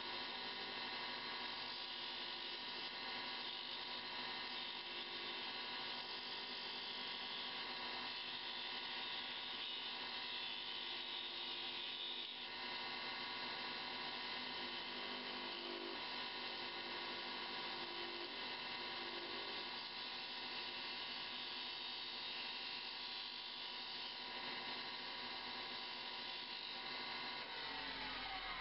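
Wood lathe running with a steady motor whine as a hand-held turning tool cuts a small Honduran mahogany ear plug down to its final shape.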